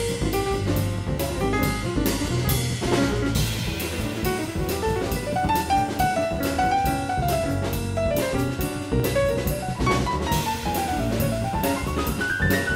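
Background music: an upbeat tune with a steady drum-kit beat and runs of instrument notes that climb and fall.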